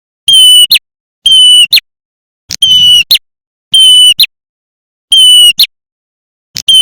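Looped lure call of a prenjak (the red-headed 'prenjak merah'), played for trapping. It is a loud, flat, buzzy note about half a second long that ends in a short sharp chip, repeated evenly about every 1.3 seconds, six times.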